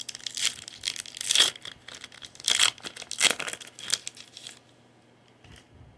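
Foil wrapper of a Topps Series 1 baseball card pack crinkling and tearing as it is ripped open by hand. It comes as a run of irregular crackles that stops about four and a half seconds in.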